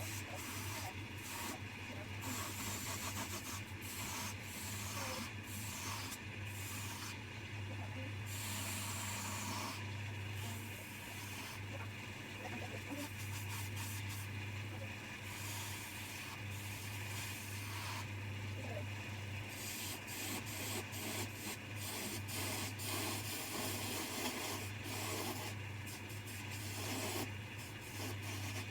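A Coronet No. 1 woodturning lathe running with a steady hum, while a turning tool cuts the spinning wood in uneven scraping passes that come and go.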